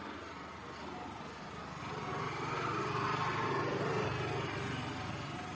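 A motor vehicle passing unseen: its engine hum grows louder about two seconds in, peaks in the middle and fades again toward the end.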